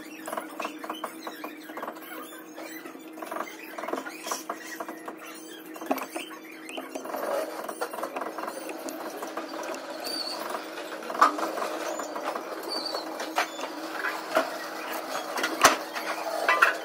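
Copper enamelled wire coils rustling, scraping and squeaking as they are worked by hand in the steel stator of a WEG three-phase motor being rewound. Irregular small clicks run over a steady hum, with one sharp click near the end.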